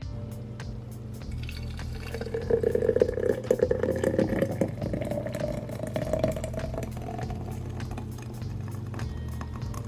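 Thick green juice pouring in a stream into a glass mason jar, splashing loudest early on and then settling into a pitch that rises as the jar fills.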